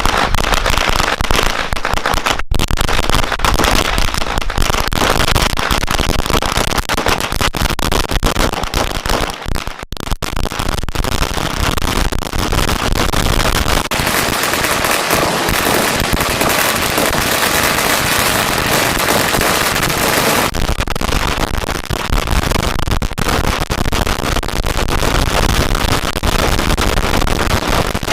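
A long string of Chinese firecrackers going off, a rapid, unbroken run of sharp bangs and crackling. It grows denser, almost a continuous crackle, for several seconds in the middle before easing back to closely spaced bangs.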